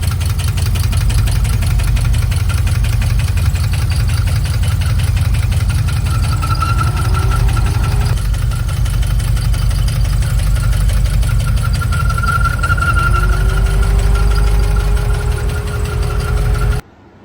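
Holden VE 6-litre V8 running with a rapid, steady top-end knock, which the teardown traced to a loose rocker over a dropped valve seat. A faint rising whine comes in twice, and the sound cuts off abruptly near the end.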